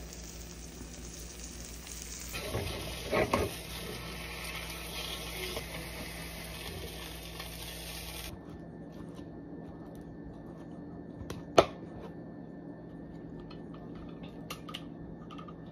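Eggs sizzling in a frying pan, with the spatula clattering against the pan a few seconds in. The sizzle stops suddenly about halfway through, followed by one sharp knock and, near the end, a few light ticks as a seasoning shaker is used.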